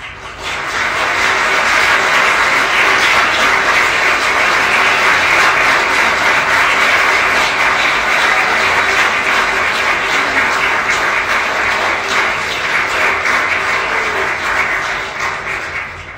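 Audience applauding: the clapping swells quickly about half a second in, holds steady, and dies away near the end.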